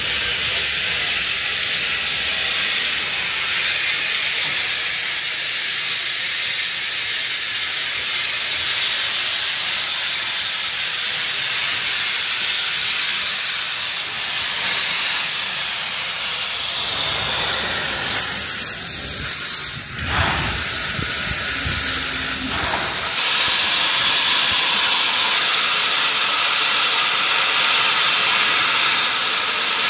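Steam locomotive 3001 venting steam low at its front, a loud steady hiss that grows louder about two-thirds of the way through.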